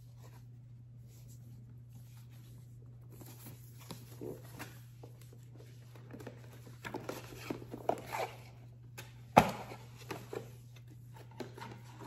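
A cardboard product box and its packaging being opened and handled: scattered rustling, scraping and small knocks that grow busier after a few quiet seconds, with one sharp knock about nine seconds in. A steady low hum sits underneath throughout.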